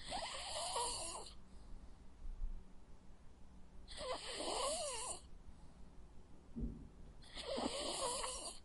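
A sleeping dog snoring: three slow breaths about four seconds apart, each with a wavering whistle in it.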